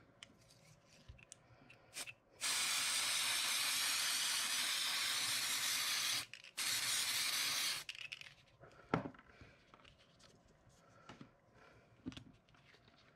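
Bostik aerosol spray adhesive hissing out of the can in two bursts: a long one of about four seconds, then after a brief stop a shorter one of about a second. Light taps and paper handling come before and after.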